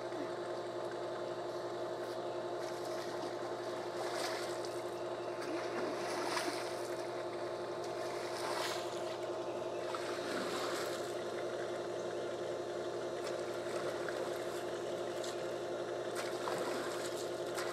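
Water splashing in a swimming pool several times as a child wades through it, over a steady mechanical hum.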